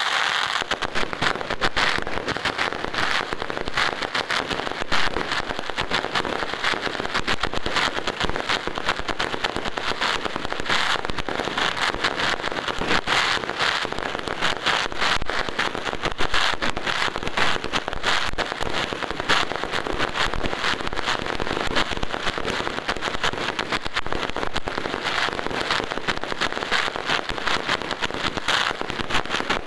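Fireworks display: a dense, continuous crackle of many small bursts from crackling star shells and ground fountains, going on without a break.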